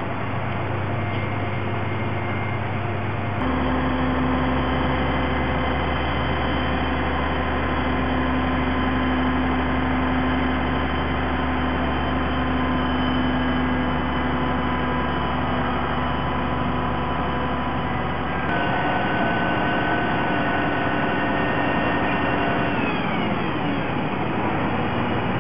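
Heavy diesel machinery running steadily, a constant engine hum whose note changes abruptly twice, about three seconds in and again past the middle.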